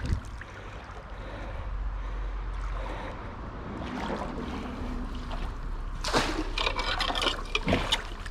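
Creek water splashing and trickling as a dip net is swept through a shallow pool. A burst of sharper splashing comes about six seconds in.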